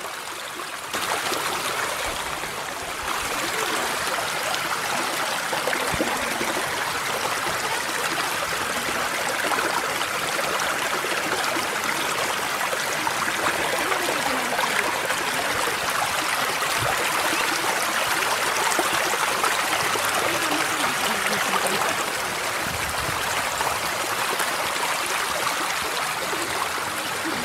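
A shallow mountain stream flowing and splashing over rocks in small cascades, fed by water welling out of a cave at the foot of a rock wall. It gets louder about a second in and holds steady after that.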